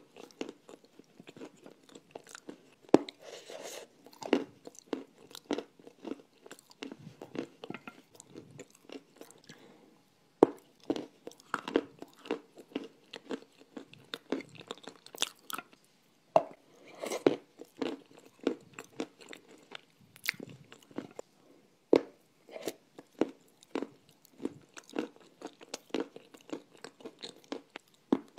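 Close-miked crunching and chewing of dry clay: sharp, irregular crunches as pieces are bitten off and ground between the teeth, with softer chewing between them.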